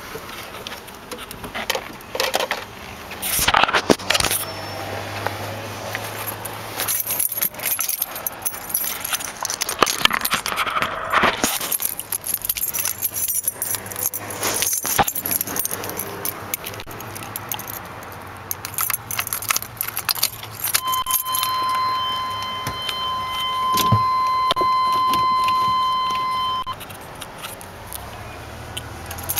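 Keys jangling and clicking around the steering column and ignition of a Chevrolet G20 van, with a steady electronic warning tone sounding for about six seconds near the end.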